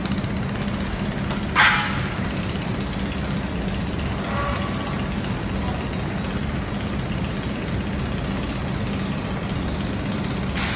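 Steady hum and noise of a robotic fiber laser welding cell at work, with one sharp knock about one and a half seconds in.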